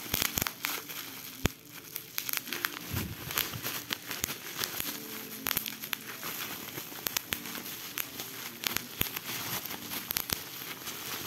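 Bubble wrap being popped and handled: irregular sharp pops among crinkling plastic.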